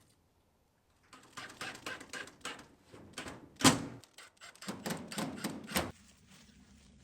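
An irregular run of sharp clicks and knocks from panels being handled and fixed in place on a small wooden animal house, the loudest knock a little past the middle.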